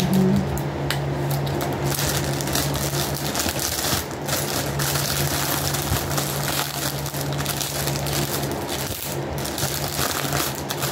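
Rustling and crinkling of plastic packaging being handled, over a low steady hum that drops away for a few seconds midway.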